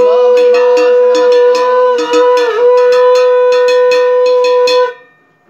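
Conch shell (shankha) blown in one long steady note that dips briefly in pitch midway, while a hand bell rings about four strokes a second; both stop together near the end.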